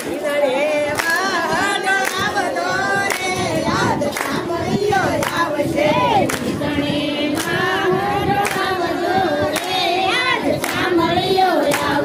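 A group of women singing together in unison, clapping their hands in a steady beat of about one clap a second.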